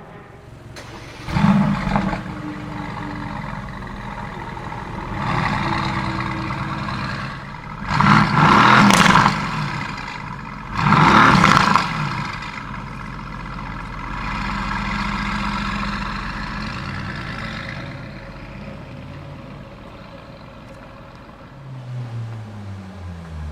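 A high-performance car engine revved in short, loud blips, sharpest about a second in and again around eight and eleven seconds, settling back to idle between them. Near the end the engine pitch falls away.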